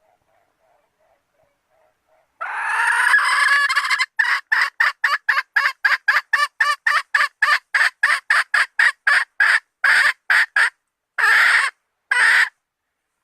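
Red junglefowl hen calling: a long harsh squawk about two seconds in, then a fast run of short clucks, about four a second, ending in two longer squawks. It is a hen's call to draw in males.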